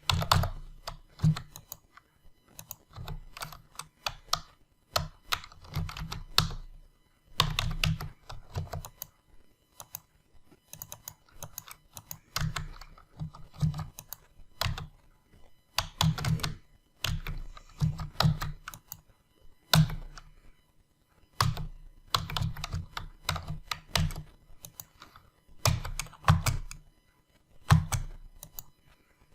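Typing on a computer keyboard in short bursts of key clicks separated by brief pauses.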